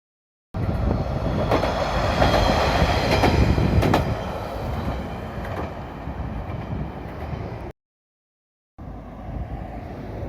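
Diesel railcar passing close by: a loud rumble with wheels clacking over rail joints, loudest in the first few seconds and then easing off. The sound cuts out completely for about a second near the end, then returns as a fainter steady rumble.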